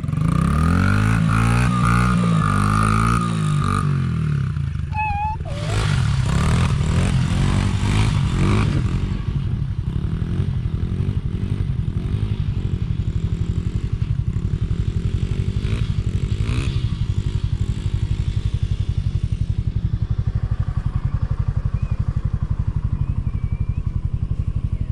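A small vehicle engine revving up and down in the first few seconds and again about six to nine seconds in, then running steadily at an even speed.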